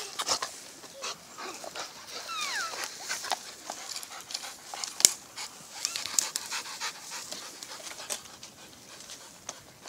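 American Staffordshire Terrier panting hard while it bites and hangs from a swinging bicycle tire, with scattered scuffs and knocks and one sharp click about five seconds in.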